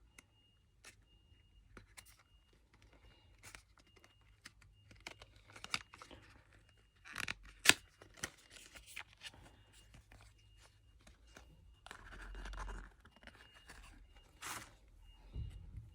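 Packaging being handled and opened by hand: scattered small clicks and scratches, a sharp snap or tear about eight seconds in, and a longer tearing rustle a few seconds before the end.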